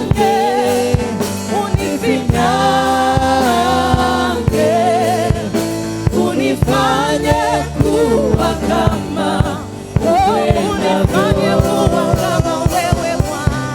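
Gospel worship music: voices singing long, wavering held notes over a band accompaniment with percussive hits.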